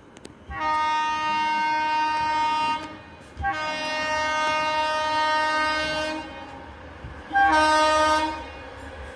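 Locomotive horn sounding three blasts: two long ones of about two and a half seconds each, then a shorter one, over the low rumble of a train running.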